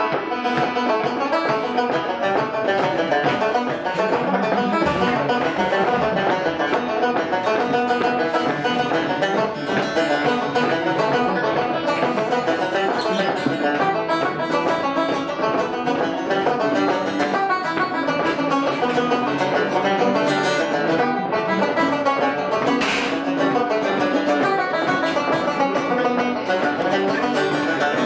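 Irish traditional music played by a pub band, a lively tune with banjo to the fore over a fiddle.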